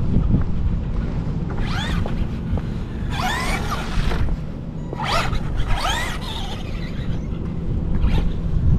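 Brushed electric motor and drivetrain of a Traxxas Rustler 2WD RC truck on a 3S battery, whining in several short bursts that sweep up and down in pitch as it is throttled. Heavy wind rumble on the microphone lies under it.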